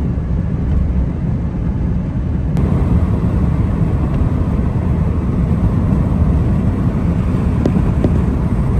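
Vehicle driving, a steady low rumble of road and engine noise, with a slight change in the sound about two and a half seconds in.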